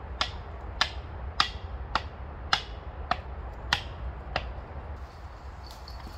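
Wood being struck with a hand tool while building a shelter frame: eight sharp knocks in a steady rhythm, about one every 0.6 seconds, stopping about a second before the end.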